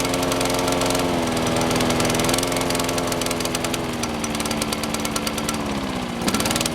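Kawasaki 5 hp four-stroke engine on a John Deere 14ST walk-behind lawn mower running steadily, its speed sagging slowly with a brief stumble near the end. The owner takes this for the engine flooding after he worked the choke.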